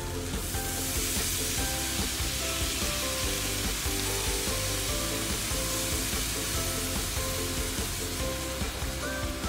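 Prawn broth poured into a hot stainless steel wok of stir-fried egg noodles, setting off a loud sizzle and steam hiss that swells about half a second in and holds steady. The noodles are stirred through the bubbling liquid near the end.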